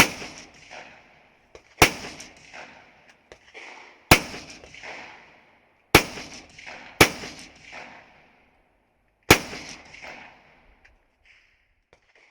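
Rifle fired six single shots at uneven intervals of one to two seconds, each crack followed by a trailing echo, with a few fainter clicks in between.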